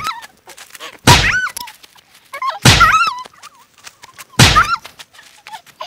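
Staged fight hits, loud punch or whack impacts, three of them about a second and a half apart, each followed at once by a short cry of pain.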